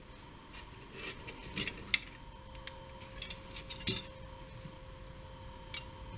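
Cathay Pacific plastic in-flight cutlery clicking and tapping as it is handled and laid out on paper towel: a run of light clicks, the two sharpest about two and four seconds in, and a last one near the end.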